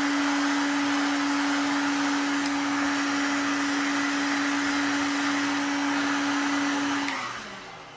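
A hot-air blower runs steadily with a constant hum, warming the phone's back glass to soften its adhesive. It is switched off about seven seconds in and winds down with a falling pitch.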